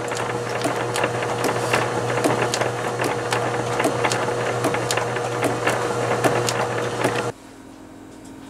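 Small irregular clicks and taps of a metal grip and pen cap being worked by hand, over a steady workshop hum with a thin tone in it. Near the end the clicking stops suddenly and a quieter hum remains.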